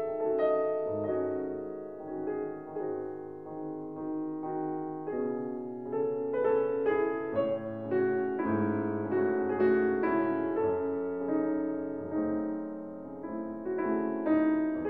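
Background piano music, a slow melody of single notes over held chords.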